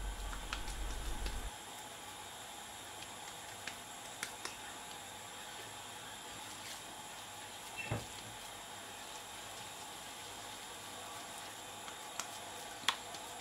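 Faint squishing of wet hands shaping raw minced-beef köfte mixture into patties, with a few soft clicks and a light knock about eight seconds in.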